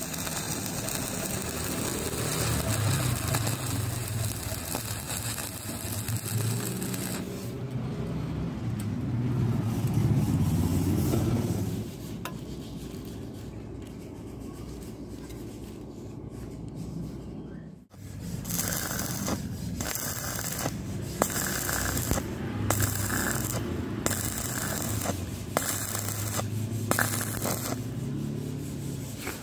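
Stick-welding arc on thin square steel tube, crackling and sizzling as the coated electrode burns. In the last third the crackle comes in short spurts with brief gaps.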